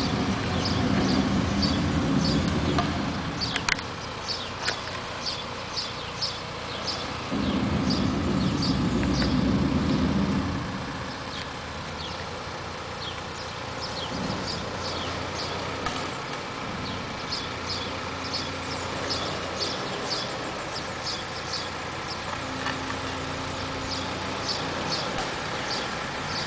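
Mobile crane's diesel engine running under load as it hoists a telecom mast, growing louder twice for a few seconds. Small birds chirp repeatedly over it.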